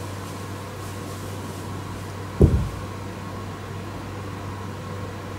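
Steady low electrical hum with faint steady tones above it, and one short dull thump about two and a half seconds in.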